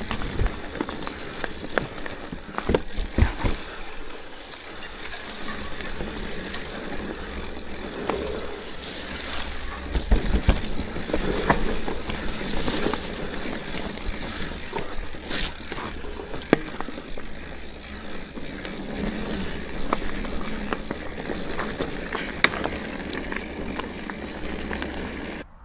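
Orbea Rallon mountain bike riding a rough trail: tyres rolling over dirt and stones, with rattling and sharp knocks from the bike over bumps, the heaviest hits about three and ten seconds in.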